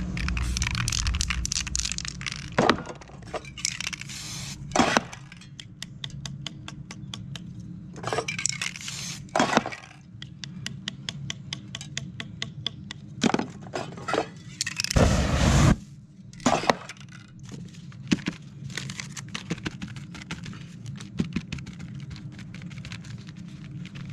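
Aerosol spray paint can hissing in short bursts, the longest and loudest about fifteen seconds in. Between the bursts comes a run of fine crackling clicks.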